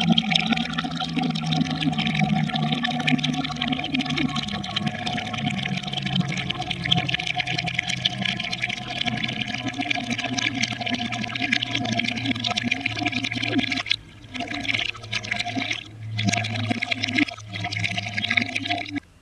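A stream of water pouring and splashing into an earthenware jar. It breaks off briefly twice in the last few seconds, then stops suddenly.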